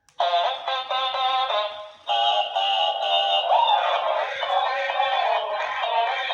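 Dancing cactus toy playing a song through its small, tinny speaker, with little or no bass.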